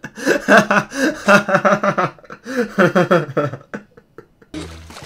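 A man laughing hard in rapid, repeated bursts of loud laughter, which die away shortly before the end.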